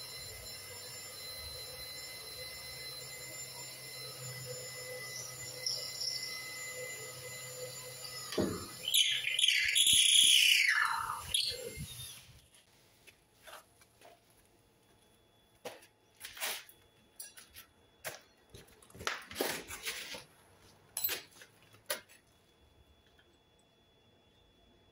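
Power drill running against the timber patio post: a steady motor whine for about eight seconds, then a louder stretch in which the pitch slides down, stopping about twelve seconds in. After that, scattered small clicks and clinks of metal hardware being handled.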